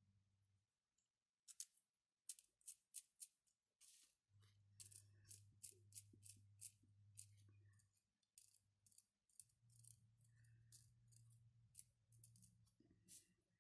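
Irregular sharp clicks and ticks of 3D-printed plastic counter parts knocking and snapping together as digit wheels are fitted onto their shaft by hand.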